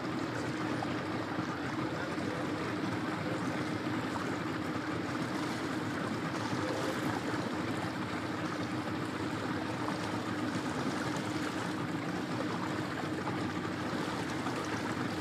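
A boat's motor running steadily with a low, even hum, under the rush and splash of water along the hull as the boat moves through calm water.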